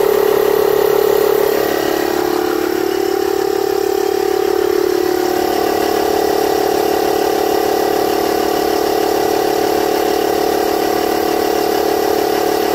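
Avid Power ACAP322 portable tire inflator's compressor running steadily as it pumps up a low car tire at about 16 PSI. Its pitch settles slightly lower over the first few seconds and then holds.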